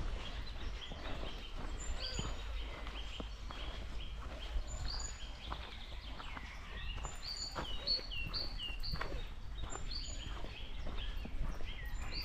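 Birdsong: several small birds chirping and whistling in short, quick phrases, over a steady low rumble, with soft footsteps.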